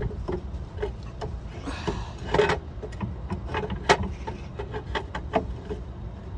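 Irregular metallic knocks, clicks and clunks of parts and tools being handled while a drive shaft is worked free from a van's hub, with a short scraping sound about two seconds in. A low steady rumble of background traffic sits underneath.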